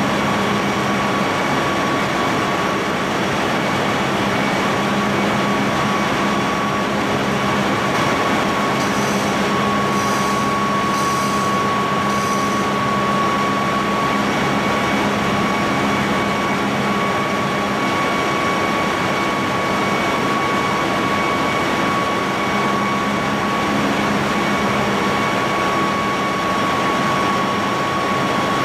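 Steady drone of a ship's engine-room machinery running, a constant high whine over a low hum.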